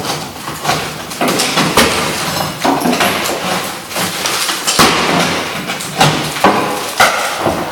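Irregular hammer blows against a wooden wall stud, chipping out a cut section of the framing, about a dozen sharp strikes with scraping and knocking between them.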